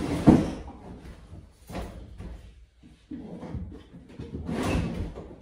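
Wooden knocks and thumps from an IKEA BRIMNES bed frame and its slatted base being handled and pressed into place, the loudest knock about a third of a second in, with a longer scuffing noise about four and a half seconds in.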